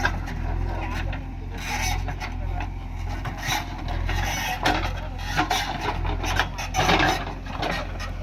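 JCB backhoe loader at work: its diesel engine runs with a steady low drone while irregular scraping and crunching noises come and go over it.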